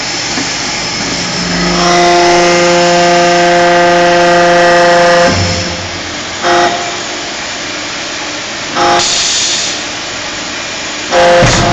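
Hydraulic brake-lining press running: a steady machine hum, with a loud, steady, pitched whine for about three and a half seconds as the mould closes, then three short whines of the same pitch a couple of seconds apart.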